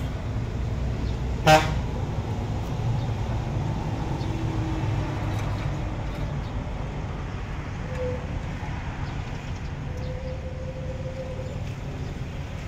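A steady low engine rumble, like a vehicle idling, with one short horn toot about a second and a half in.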